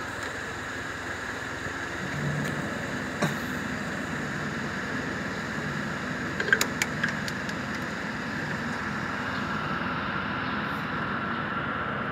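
Steady mechanical hum like an engine running, with a few sharp light clicks about a third of the way in and again around the middle.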